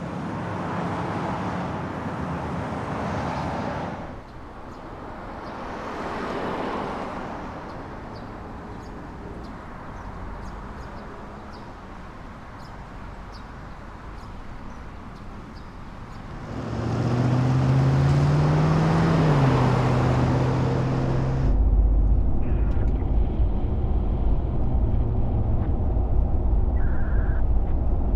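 Street traffic: cars passing, with one engine rising and then falling in pitch about two-thirds of the way through, then a louder low engine rumble.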